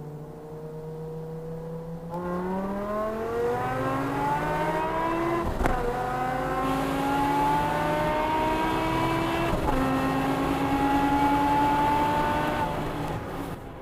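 BMW M5 E60's 5.0-litre V10 exhaust, heard from a microphone at the boot, accelerating hard. The pitch climbs and drops back at two upshifts, the first with a sharp crack, before it eases off near the end.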